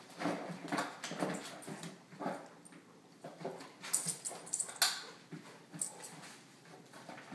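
Golden retriever chewing a plastic water bottle inside a Crinkit fabric tube toy, the bottle giving irregular crinkles and crunches, sharpest about four to five seconds in. There are short vocal sounds from the dog, mostly in the first two seconds.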